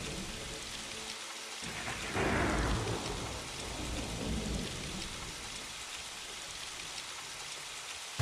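Thunder and rain sound effects from the Roland A-6 sampler's sound library: a steady rain hiss, a loud thunderclap about two seconds in that dies away over a second or so, and lower rumbles of thunder a couple of seconds later.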